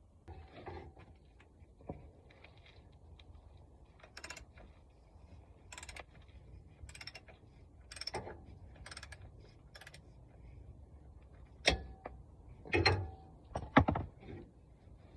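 Hand tools working on a car: scattered metallic clicks and clinks, with a few louder knocks near the end.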